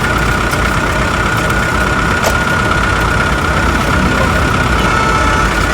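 Toy truck running with a steady engine-like rumble and a constant high whine.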